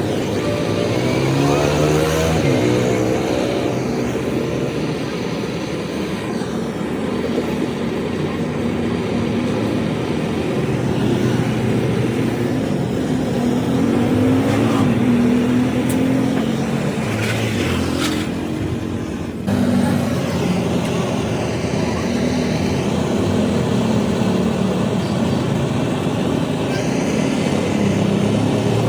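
Motor vehicle engine running, its pitch rising and falling as it revs, with an abrupt change about two-thirds of the way through.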